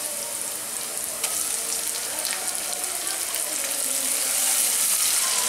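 Sliced onions frying in hot oil in a nonstick wok, sizzling steadily, with a few faint ticks as chopped tomatoes go in and are stirred with a wooden spatula. The sizzling gets louder near the end as the mixture is stirred.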